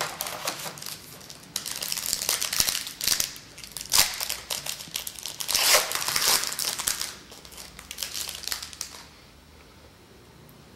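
Crinkling of a trading-card pack wrapper being handled and torn open, in uneven bursts with a sharp snap about four seconds in, stopping near the end.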